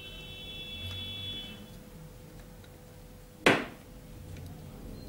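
A desoldering pump fires once with a sharp, loud snap about three and a half seconds in, sucking solder off a transistor's leg on the racket's circuit board. Before it, a high steady electronic beep lasts about two seconds.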